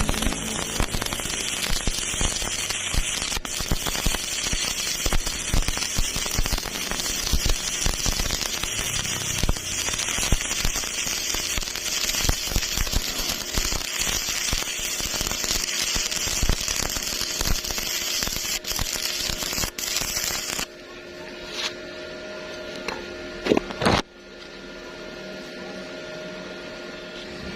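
Stick welding arc crackling steadily for about twenty seconds, then it stops, leaving a quieter hum with one brief loud sound a few seconds later.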